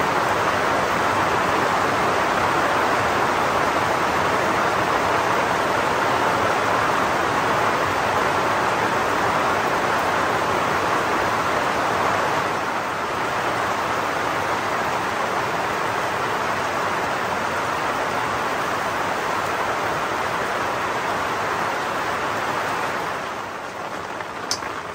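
Rain falling steadily, a dense even hiss that eases slightly about halfway through and fades out near the end.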